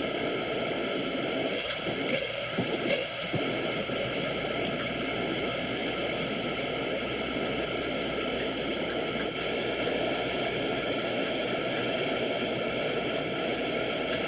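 Hospital ambience: a steady hiss and machine hum carrying several constant tones, with a few soft knocks about two to three seconds in.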